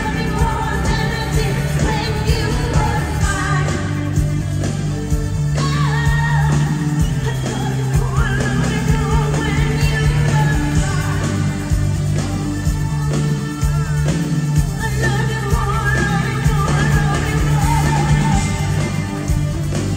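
Live pop-rock band playing, with a woman singing lead into a microphone over a steady drum beat and heavy bass, heard from the audience in a large arena.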